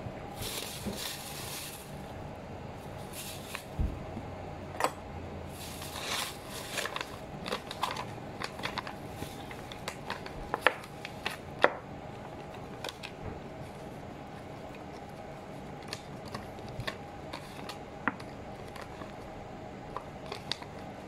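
Plastic carrier bag and paper food wrapping rustling and crinkling as a takeaway meal is taken out and unwrapped, followed by scattered light clicks and scrapes of a plastic spoon in the food and paper, over a steady room hum.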